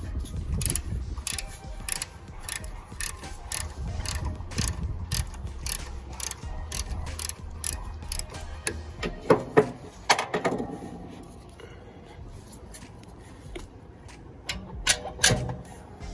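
Ratchet wrench clicking in a quick, even run as a 6 mm hex bolt is turned on the compressor. This gives way to a few louder knocks of tools or parts.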